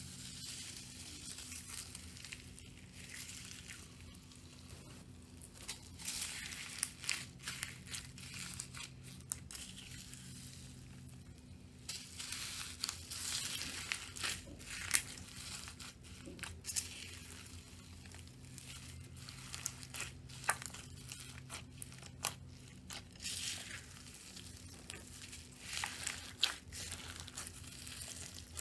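Hands squeezing and kneading slime, giving irregular crackling and sharp little pops in spurts, over a steady low electrical hum.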